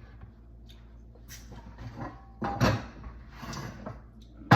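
Knife cutting a stuffed chicken breast in half: a few short scraping, clattering strokes about a second apart, with a sharper, louder one near the end.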